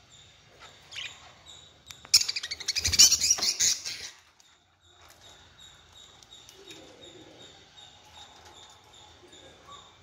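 Pet budgerigars chirping: a short chirp about a second in, then a loud run of rapid, harsh chattering chirps lasting about two seconds. A faint high chirp repeats about four times a second in the background.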